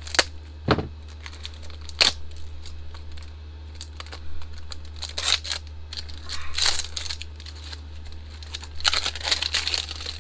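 Plastic film wrap being nicked with small cutters, then torn and peeled off a hard zipper carrying case, crinkling in irregular bursts. A few sharp clicks in the first two seconds, over a steady low hum.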